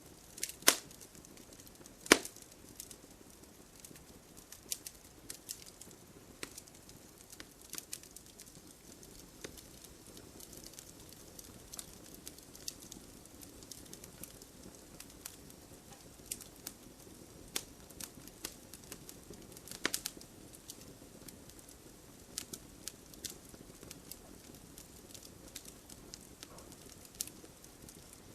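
Wood campfire crackling, with irregular sharp pops and snaps over a low steady hiss; two loud pops come in the first couple of seconds and another cluster about twenty seconds in.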